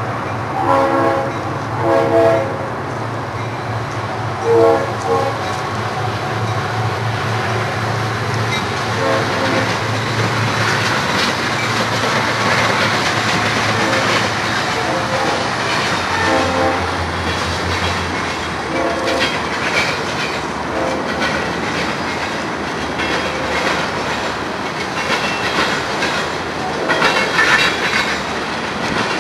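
A Union Pacific freight train passing with three diesel locomotives in the lead. The engines drone low under several short horn blasts in the first half, the loudest near the start. After the locomotives have gone by, the freight cars roll past with a steady rumble and wheels clicking over the rail joints.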